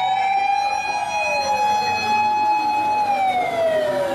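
Fire engine siren wailing: it climbs to a high tone, holds it steadily for about three seconds, then slowly falls in pitch near the end.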